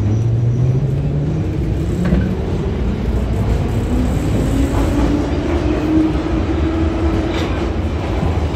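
Em-501 metro train accelerating out of a station, heard inside the car: the traction motors' whine climbs steadily in pitch over a constant rumble of the wheels on the rails.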